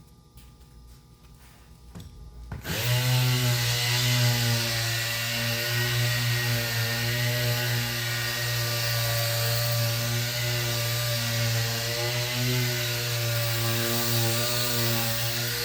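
Electric sander switched on about two and a half seconds in, spinning up quickly and then running steadily with a loud motor hum.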